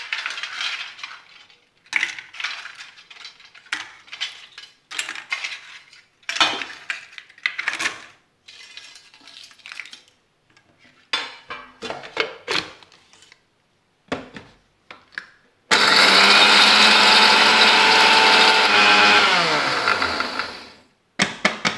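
Eggshells and a steel mixer-grinder jar clinking and knocking as the shells are dropped in and the jar is handled. About 16 seconds in, an electric mixer grinder runs loudly for about five seconds, grinding the eggshells to powder. Its pitch falls as it is switched off and winds down.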